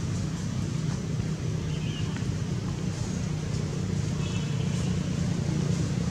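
Steady low rumble of a running motor-vehicle engine, with a few faint short high chirps about two and four seconds in.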